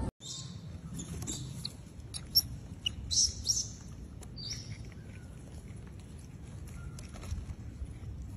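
A few short, high bird chirps, bunched in the first half, over a low steady outdoor background noise.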